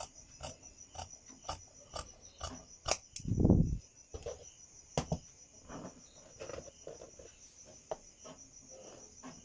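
Large tailor's shears snipping through doubled cloth, about two crisp snips a second, then a loud low thud about three and a half seconds in, followed by softer rustling as the cut fabric is handled. A steady high-pitched trill runs underneath throughout.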